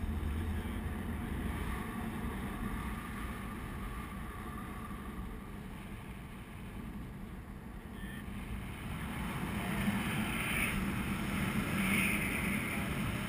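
Airflow rushing over the camera's microphone during paraglider flight, a steady rumbling wind noise that grows a little louder in the last few seconds.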